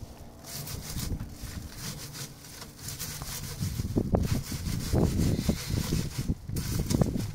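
Amaranth seed heads rubbed by hand against a wire mesh screen, threshing the seed out: a rustling, scraping rub in repeated strokes, louder from about four seconds in.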